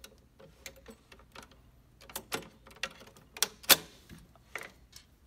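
Irregular metallic clicks and taps as a steel lock faceplate is handled and set against the edge of a mortise lock body, the sharpest click a little past halfway.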